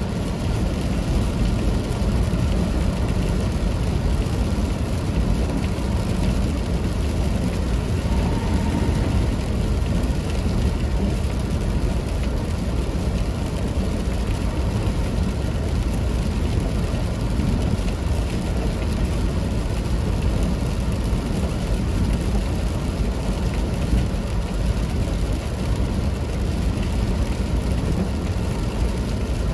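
A vehicle being driven, its engine and road noise running steady and even.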